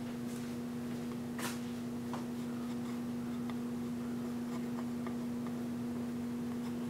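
Faint scrapes and light taps of a palette knife laying thick acrylic paint onto a small wooden panel, over a steady low hum.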